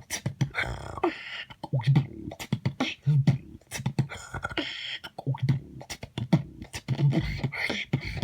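Beatboxing: one voice making a beat of low kick-drum thumps, sharp clicks and hissing sounds, with a thump about every second.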